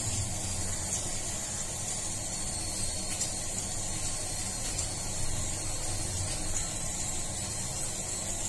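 Steady hiss with a low hum underneath.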